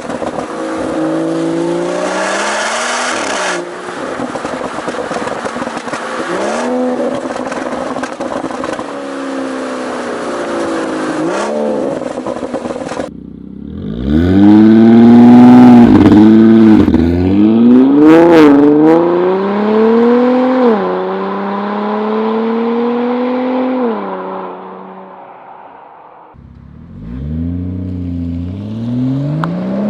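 Turbocharged six-cylinder sports coupe exhaust, rising and falling in pitch as the car accelerates and shifts. About 13 seconds in there is a cut to a louder clip of hard revving with climbing pitch, which dies away near 25 seconds and then rises again near the end.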